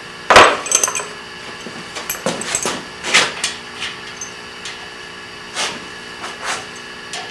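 Sharp metallic clinks and knocks of small metal parts and hand tools being handled and set down on a metal work surface, about six in all, the first and loudest followed by a brief high ring.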